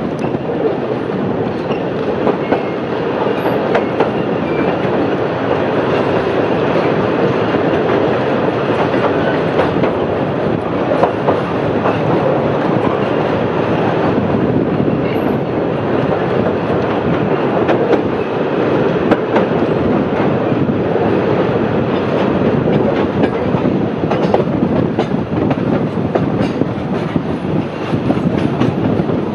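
Heritage passenger carriage running along narrow-gauge track, heard from on board: a steady rumble of wheels on rails with occasional clicks over the rail joints.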